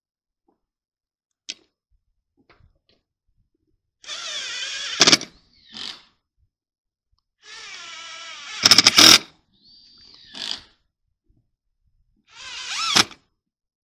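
Cordless drill driving screws through the flange of a rubber vent pipe boot into a plywood roof deck, three times. Each time the motor whine rises and ends in a short loud burst as the screw seats, with brief blips of the drill in between.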